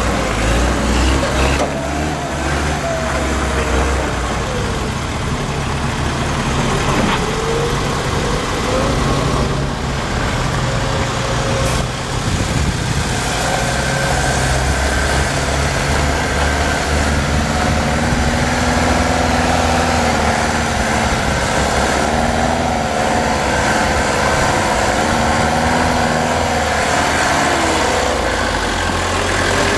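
Mercedes-Benz Unimog 421's 2.4-litre diesel engine running as the truck climbs over rough off-road terrain, its revs rising and falling throughout.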